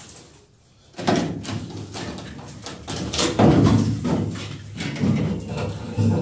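Old rubber windshield seal being pulled and peeled off the bare steel windshield frame of a Datsun 280Z: rubbing, scraping and flapping of the rubber with small clicks, starting about a second in and loudest around the middle.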